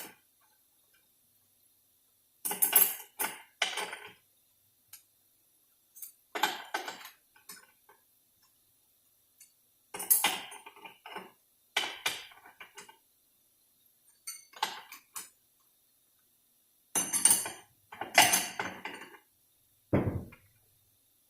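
Steel clutch plates and friction discs of a 46RE transmission's overdrive clutch pack being set one at a time into the clutch drum, clinking metal on metal in short clusters every few seconds, with a duller knock near the end.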